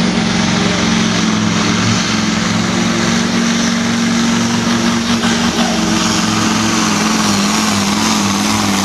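MAN pulling truck's diesel engine at full throttle under heavy load, dragging a truck-pulling sled. It runs loud and steady at near-constant pitch, wavering slightly near the end.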